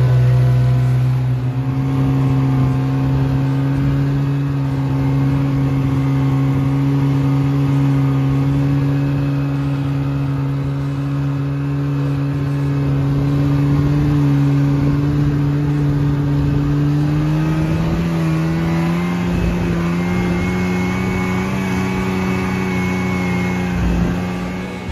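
Polaris Indy snowmobile engine running steadily as the sled travels over snow, its pitch rising about two-thirds of the way through as it speeds up.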